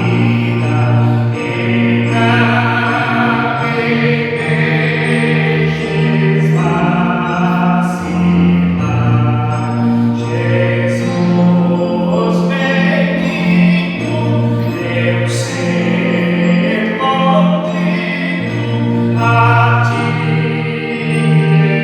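A man singing a church song over instrumental accompaniment. Long held low notes change every second or two under the voice's wavering sung lines.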